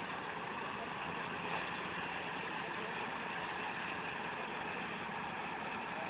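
Komatsu crawler bulldozer's diesel engine running steadily as the dozer pushes a blade load of earth.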